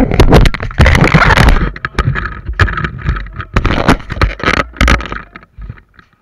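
Rubbing and knocking of clothing and gear right against a worn action camera's microphone as the player moves, with irregular sharp clicks and knocks over a low rumble. It dies away near the end.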